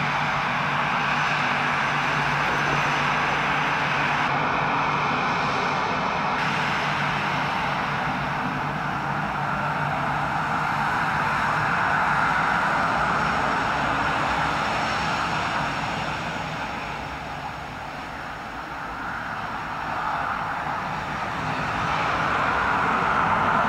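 Airbus A319 jet engines running as the airliner taxis along the runway: a steady whine and rush that fades a little past the middle and grows louder again near the end.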